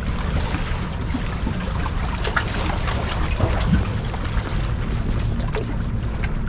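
Wind rumbling on the microphone over the steady wash of sea water, with scattered short clicks and small splashes.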